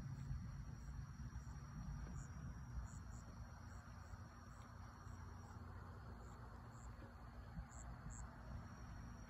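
Insects chirping outdoors at dusk: short, high chirps about twice a second, over a steady low rumble.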